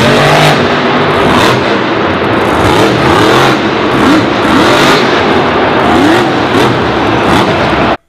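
Monster truck engine revving hard, its pitch swinging up and down over and over, over a loud wash of noise with a few sharp cracks.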